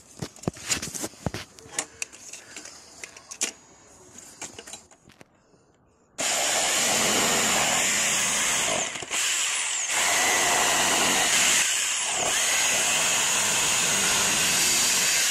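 Corded electric jigsaw cutting through a thick timber beam: a loud, steady saw noise that starts suddenly about six seconds in, with two brief dips. Before it, scattered light taps and clicks.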